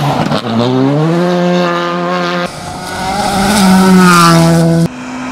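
Skoda Fabia R5 rally car's turbocharged four-cylinder engine revving hard under acceleration, its pitch climbing and sagging, with the sound jumping abruptly twice.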